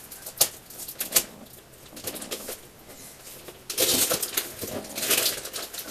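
Scissors cutting through packing tape on a paper-wrapped cardboard parcel: a few sharp snips and clicks, then a longer stretch of paper wrapping rustling and crackling about four seconds in.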